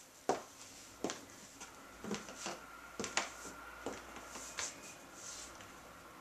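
Stiletto high heels clicking on a ceramic tile floor in a handful of irregular steps, with faint rustling between the clicks.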